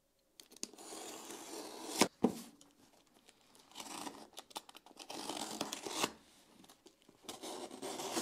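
Knife blade slitting and tearing the packing tape on a cardboard parcel, in several scratchy stretches with a few sharp clicks.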